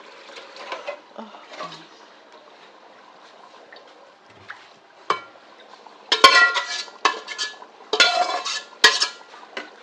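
A spoon clattering and scraping against a cooking pot as a meat stew is stirred, coming in several loud bursts with a ringing clink from about five seconds in.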